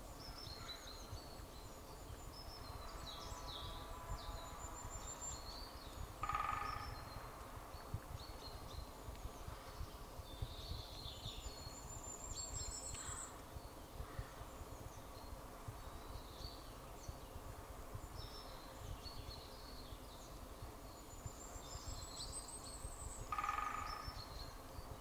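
Woodland birds chirping and singing in scattered short notes, with a few rising trills, over a steady low rumble of wind. Two louder short calls with a clear pitch stand out about six seconds in and again near the end.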